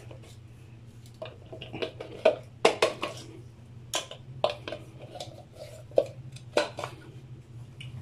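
Plastic food-processor bowl and its blade assembly handled and tapped over a stainless-steel mixing bowl to empty out freshly ground oat flour: a scattered series of short clicks and knocks, the sharpest a few seconds in and about six seconds in.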